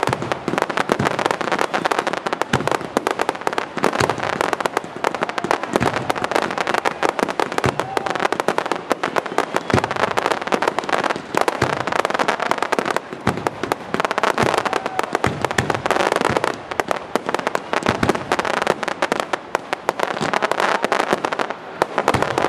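Fireworks display: a continuous, dense run of crackling pops and sharp bangs from exploding fireworks, with a few louder reports standing out.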